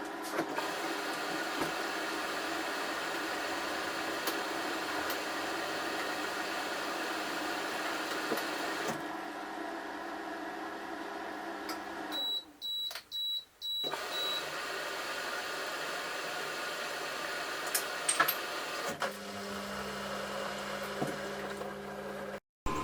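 Samsung washing machine's control panel giving four short, high beeps a little past halfway, over a steady mechanical hum. A lower steady hum starts near the end.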